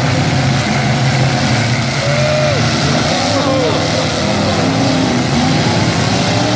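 Several demolition-derby pickup trucks' engines running and revving together, their pitch rising and falling as the trucks drive and ram each other.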